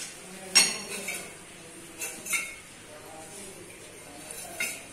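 Metal tools and engine parts clinking and clanking as they are handled during an engine teardown: a sharp clank about half a second in, two lighter clinks about two seconds in, and another clank near the end.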